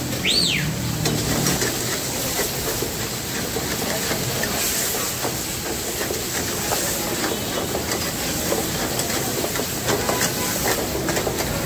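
Chicken karahi sizzling and frying hard in a steel wok over a gas burner on high flame, a steady hiss, with a metal ladle scraping and clicking against the pan now and then. A brief high chirp just after the start.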